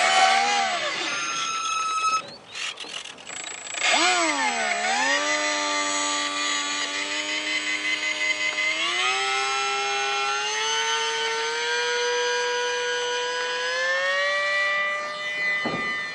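Electric motor and propeller of a ParkZone ultra-micro ICON A5 RC flying boat whining. A short burst cuts off, then about four seconds in the motor starts up again, dips, and rises in pitch in several steps as the throttle is opened.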